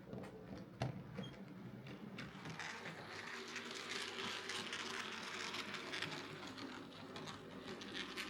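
Hornby Class Q6 OO gauge model steam locomotive running on its newly fitted replacement motor, a steady whirr of motor and gears with frequent small clicks. It grows louder a couple of seconds in.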